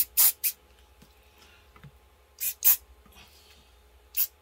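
Aerosol can of super glue (CA) accelerator sprayed in short hissing bursts: three quick ones at the start, two about two and a half seconds in, and one near the end. The accelerator sets the super glue on the joint almost at once.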